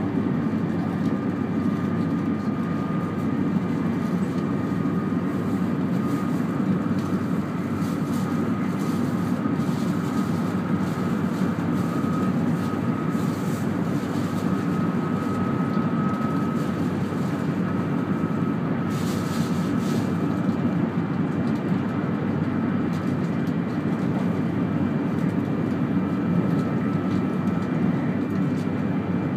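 Steady running noise heard inside the cabin of a 200 Series Shinkansen, a low rumble with a faint high whine over it. A brief hiss rises and falls about two-thirds of the way through.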